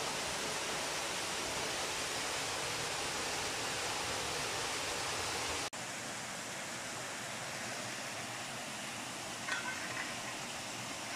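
Steady rushing of water falling into a water mill's wheel pit and running off down the channel. The rushing drops slightly in level a little over halfway through.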